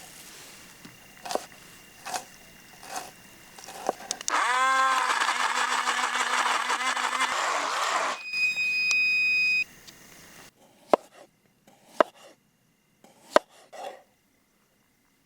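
Battery-powered portable blender grinding a ginger, garlic and onion paste: the motor starts suddenly with a rising whine and runs steadily for about five seconds. Its sound changes to a thinner high tone before it cuts off. A few light knocks follow.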